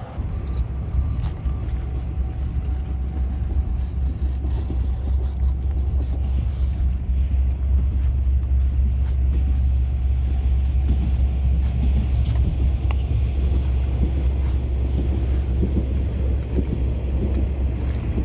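A knife shaving thin curls off a stick of split firewood to make a feather stick, in repeated short scraping strokes, over a steady low rumble that is the loudest sound.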